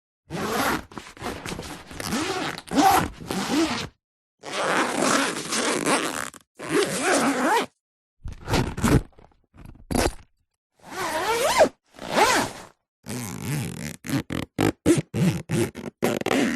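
A series of clothing zippers being zipped and unzipped, with separate pulls at different speeds: some slow and drawn out, about a second long, others quick and short, with brief silences between them.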